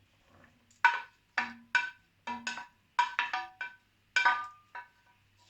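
A cooking utensil knocking and clattering against a metal pan of vegetables while they are stirred. About a dozen sharp strikes at an uneven pace, each ringing briefly.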